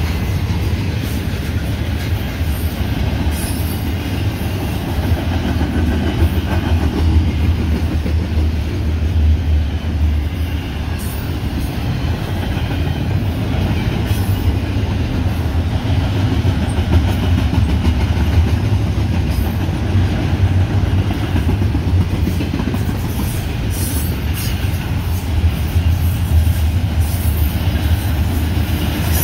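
Union Pacific double-stack intermodal train's container-laden well cars rolling past: a steady low rumble of steel wheels on rail, with scattered short clicks throughout.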